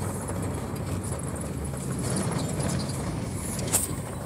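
Car cabin noise while riding along: a steady low rumble of engine and tyres on the road, with one brief click near the end.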